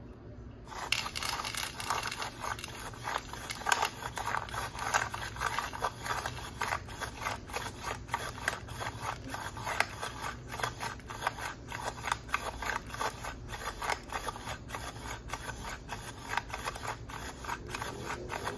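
Dry cat kibble clicking and scraping in a rapid, irregular stream of small hard ticks. It starts suddenly about a second in and keeps going without a break.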